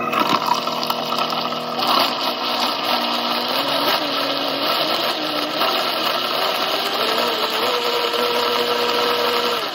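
Vitamix blender with a stainless steel container, blending hot coffee and cacao butter into an emulsion. The motor starts abruptly and runs steadily, with a tone in its sound that wavers, then rises and holds steady for the last couple of seconds.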